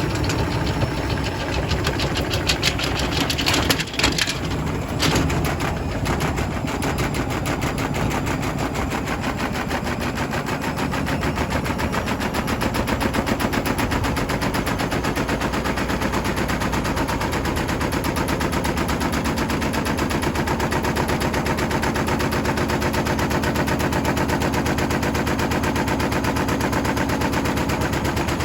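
Hotpoint WMFUG742 washing machine drum turning fast with a brick inside, the brick knocking against the drum in a rapid, continuous rattle over the running motor. A few louder clacks come about four to five seconds in.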